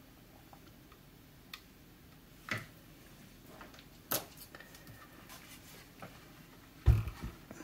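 Scattered light clicks and taps from multimeter probes and test leads being handled on a workbench, with a louder, deeper thump near the end.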